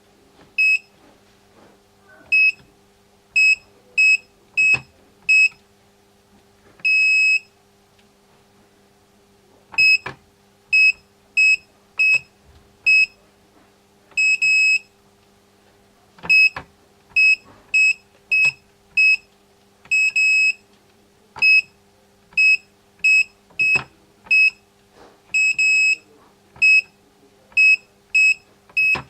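Wireless home alarm keypad and system beeping as buttons are pressed during registration: many short, high, identical beeps at an uneven pace, with a few noticeably longer beeps among them. Faint clicks fall between the beeps.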